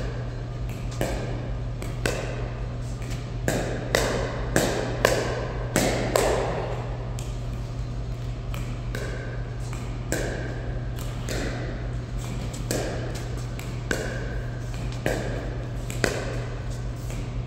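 Pickleball paddles striking a plastic pickleball back and forth in a rally: repeated sharp hits at irregular spacing, sometimes two or three a second. A steady low hum runs underneath.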